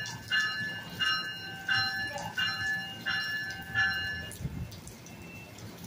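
NJ Transit train's warning bell ringing in even strikes, about three every two seconds, then stopping about four seconds in; a low rumble follows near the end.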